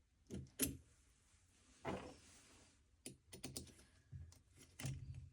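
Small tools and metal parts clicking and knocking during hand assembly work on an engine, with a brief scrape about two seconds in.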